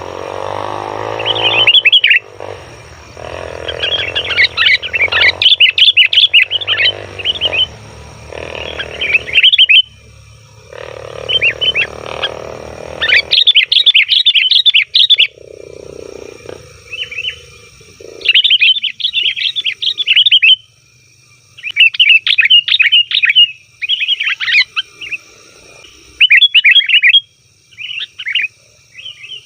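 Sooty-headed bulbuls calling noisily: repeated bursts of quick, bubbly chattering phrases, each a second or two long with short gaps between them.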